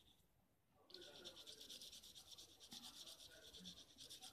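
Pencil lead rubbing on a sheet of paper in rapid back-and-forth shading strokes, several a second, starting about a second in.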